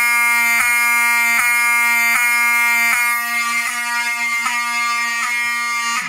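Wheelock mechanical fire alarm horn strobes sounding in alarm: a loud, continuous buzzing horn tone with a slight hitch about every three-quarters of a second. It cuts off abruptly at the very end.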